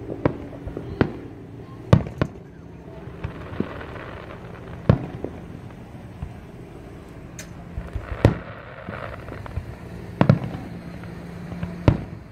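Aerial firework shells bursting overhead: separate sharp bangs at irregular intervals of one to three seconds, some in quick pairs, over a steady low hum.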